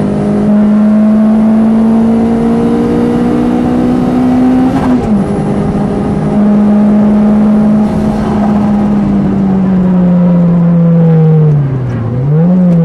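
Lotus Elise Type R's four-cylinder engine heard from inside the cabin, held at high revs on track and slowly climbing, with a brief drop for a gear change about five seconds in. Near the end the revs sag slowly, then dip and rise again quickly at the very end, as on braking and a downshift.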